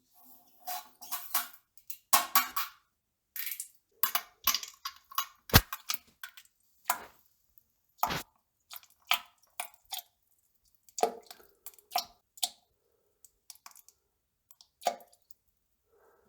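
Pooping sounds: an irregular run of short wet crackles, pops and squishes, a dozen or more scattered over the stretch with short quiet gaps between them.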